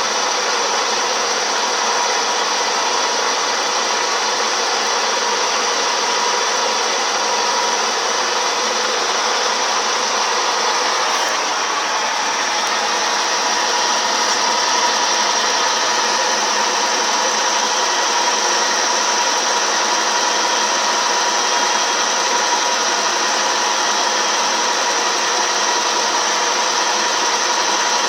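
CNC milling machine running as a lathe: the spindle spins the workpiece while a fixed tool cuts it, a steady machining hiss with a steady whine, which shifts slightly about halfway through.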